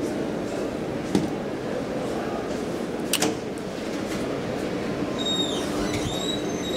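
Thyssen traction elevator car travelling in its shaft: a steady running hum with two sharp clicks, about one and three seconds in. From about five seconds in comes a high squeal that wavers in pitch.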